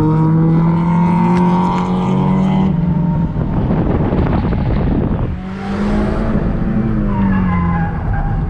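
Subaru WRX's turbocharged flat-four engine heard from inside the cabin, pulling steadily under load. About three seconds in a harsh rushing noise covers it, the engine dips briefly, then comes back on, its pitch sinking slowly near the end.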